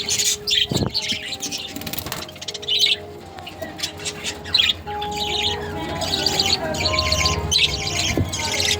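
A flock of budgerigars chirping and chattering in quick, overlapping bursts, with steady background music under it.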